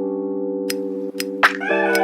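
Background music of held chords, shifting to a new chord near the end, with a few short clicks over it.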